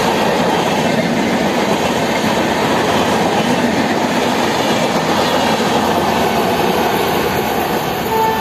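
Shatabdi Express passenger coaches rushing past at speed close by, a steady loud rolling rumble with wheels clattering over the rail joints. A train horn starts sounding just at the end.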